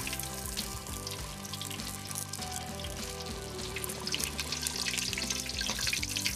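Egg rolls deep-frying in a stockpot of hot oil, sizzling and crackling steadily as they are lifted out, under background music.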